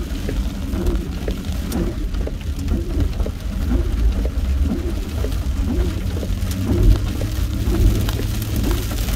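Heavy rain pelting a moving car, heard from inside the cabin over a steady low rumble from the road and engine.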